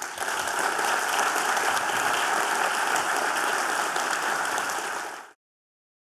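Audience applauding, a dense steady clapping that cuts off suddenly a little over five seconds in.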